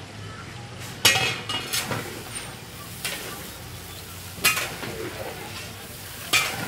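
Onions sizzling in ghee in a huge metal cooking pot while a long metal ladle stirs them, scraping and clanking against the pot several times, the loudest stroke about a second in.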